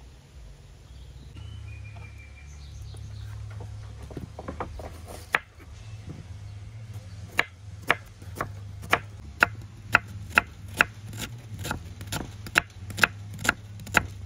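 Kitchen knife slicing red onions on a wooden cutting board: sharp knocks of the blade striking the board, irregular at first, then settling into an even rhythm of about two a second.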